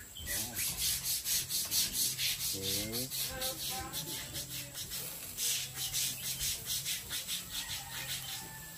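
Rhythmic rasping hiss, about four strokes a second, with a brief pitched call about three seconds in.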